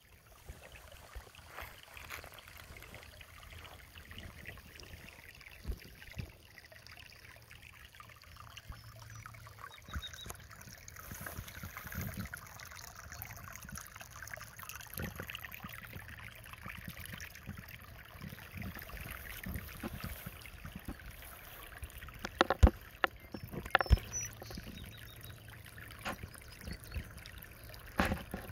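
Steady, hushed outdoor noise with scattered small clicks, broken by a few sharp knocks about three quarters of the way in and again near the end.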